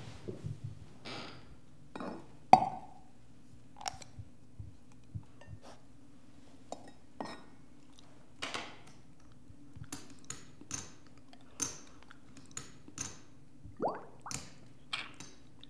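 Scattered light clinks and taps of glassware and poker chips being handled at a table, over a low steady hum, with one sharper clink about two and a half seconds in. Near the end, a short sip through a straw.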